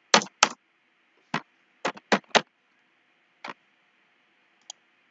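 Computer keyboard keystrokes: about eight separate, sharp taps at an uneven pace, as a line of code is typed.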